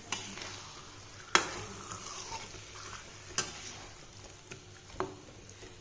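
Marinated chicken sizzling in oil in a metal kadai while a spatula stirs it, knocking and scraping against the pan about five times, the sharpest knock about a second and a half in.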